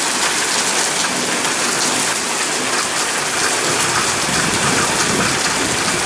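Heavy rain pouring down steadily and splashing on hard surfaces in a thunderstorm downpour.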